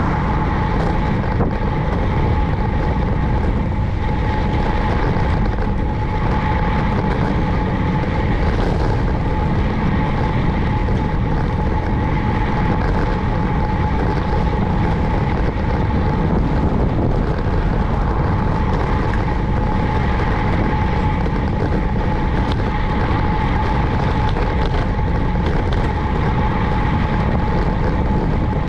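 Wind buffeting the microphone of a cyclist's camera while riding, a loud steady rush heaviest in the low end, with a thin steady whine on one pitch above it.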